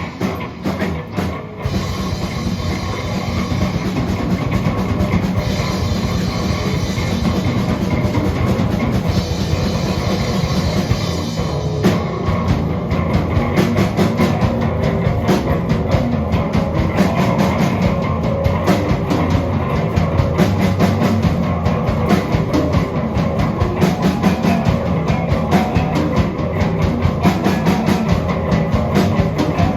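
A live heavy rock band of two bass guitars and a drum kit playing an instrumental passage with no vocals. The drumming gets busier and more even about twelve seconds in.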